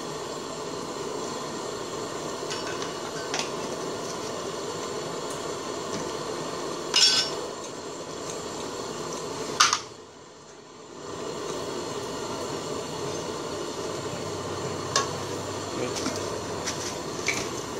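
Metal utensils clinking against an aluminium cooking pot: a few light clinks and two louder knocks, about 7 and 10 seconds in. Under them runs a steady hiss of the curry simmering, which drops away briefly after the second knock.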